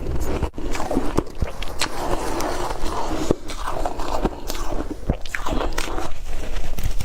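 Ice being bitten and crunched in the mouth: a steady run of sharp, irregular cracks and crunches.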